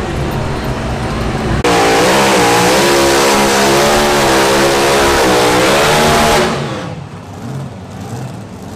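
Competition pulling engine: a lower rumble, then about two seconds in it jumps suddenly to a very loud full-throttle run whose pitch wavers up and down, dropping away again about four and a half seconds later.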